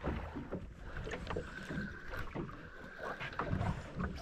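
Penn spinning reel being wound, giving a steady high squeal from about a second and a half in for nearly two seconds. Underneath are the wash of water and wind around a small boat at sea and a string of low knocks.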